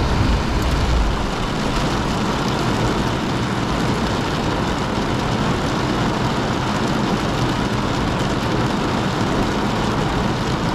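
Torrential driving rain beating on the roof and windshield of a car, heard from inside the cabin as a steady, dense hiss.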